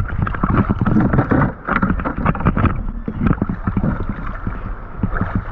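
Seawater sloshing and splashing close around a camera held at the surface against a dive float, in short irregular surges.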